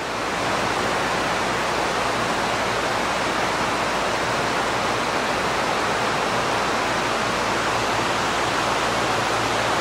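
Steady rush of falling or flowing water, an even hiss-like noise that holds level throughout.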